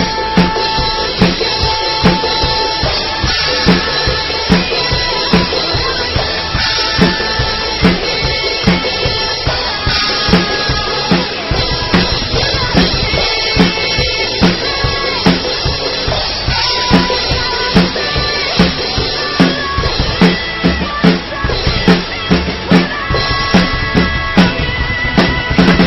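A child playing a drum kit along to a recorded backing song: a steady beat of bass drum and snare hits with cymbals over the music's sustained melody.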